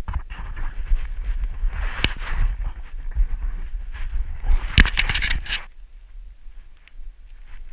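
Rumbling, scraping handling noise on a body-worn action camera as its wearer scrambles over rock, with a sharp knock about two seconds in and a cluster of sharp knocks around five seconds, then it quietens.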